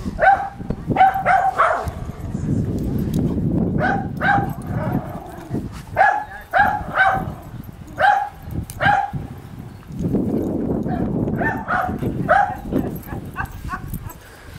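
Dogs barking in rough play, a Border Collie and a young Vizsla wrestling: short barks in quick runs of two to four, with a low rough rumble between the runs.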